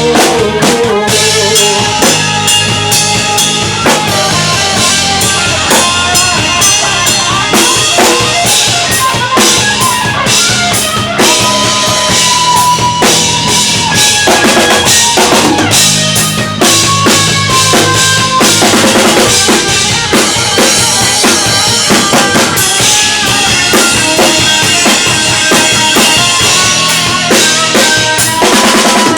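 Live rock band playing an instrumental passage with no vocals: a drum kit keeps a steady, loud beat on bass drum and snare under held notes from the other instruments.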